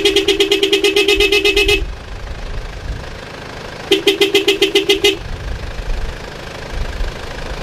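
A vehicle horn sounding in rapid stuttering pulses, about ten a second, in two bursts: one of about two seconds at the start and a shorter one about four seconds in. Between and after the bursts there is a low rumble of engines.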